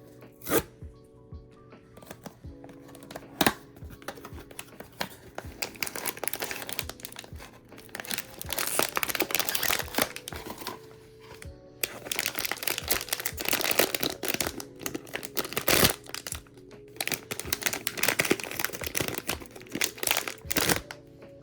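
Crinkling and tearing of a blind box's plastic wrapping as it is opened by hand, in several long stretches, with a few sharp clicks from handling the packaging. Soft background music plays underneath.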